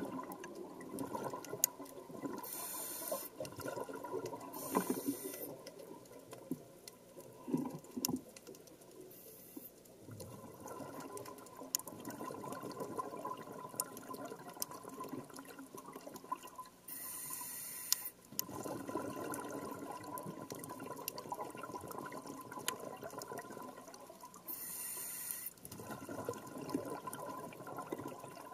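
Underwater recording of a scuba diver's breathing through the regulator: five short hisses of the demand valve between long stretches of bubbling from exhaled air. Scattered sharp clicks run throughout.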